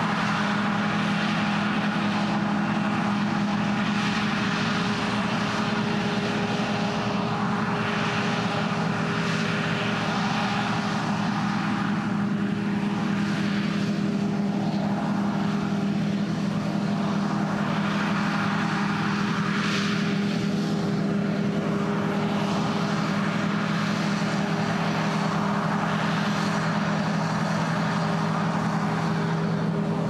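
John Deere S680 combine harvester running under load while harvesting wheat: a steady, unbroken mechanical drone with a constant low hum, its hiss shifting slowly as the machine travels across the field.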